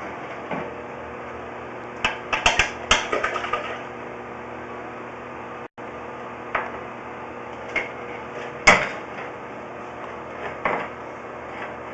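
Knocks and clatter of a sewer inspection camera's push cable and head being worked through a drain cleanout, over a steady hum. A quick run of several knocks comes about two to three and a half seconds in, then single knocks follow, the loudest near nine seconds.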